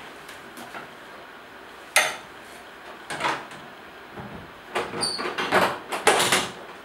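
Plastic lid of a CB-500T currency box (a cash box) shut with a sharp knock about two seconds in. It is followed by a further knock and then a run of clicks and rattles as the lid is pressed down and fastened, one with a brief metallic ring.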